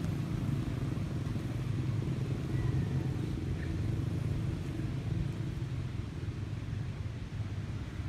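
A motor vehicle engine running steadily, a low rumble that eases off slightly near the end.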